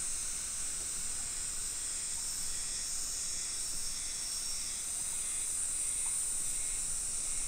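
Steady high-pitched insect chorus, an unbroken buzzing hiss.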